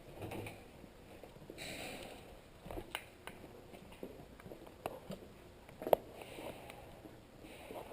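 A person moving quietly: scattered light clicks and rustles of gear and footsteps, a few sniff-like breaths, and one sharp, louder click about six seconds in.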